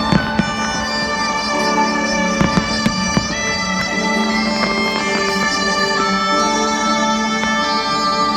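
Music with long held notes, broken by a few sharp firework bangs in the first three seconds.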